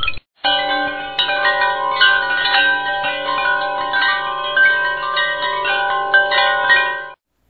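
Intro music of bell-like chime tones ringing and overlapping, cutting off abruptly near the end.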